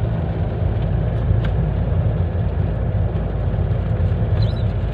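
Steady low engine and road rumble heard from inside a moving vehicle on a wet road in rain, with a hiss of tyres and rain over it.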